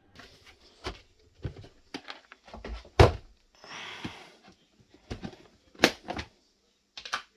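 Knocks and clicks of a clear plastic kibble container and its snap-on plastic lid being handled and pried open, with a short rustle just before the middle and the loudest knock about three seconds in.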